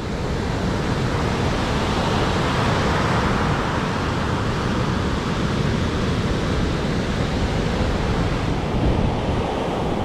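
Ocean surf washing steadily, with wind rumbling on the microphone.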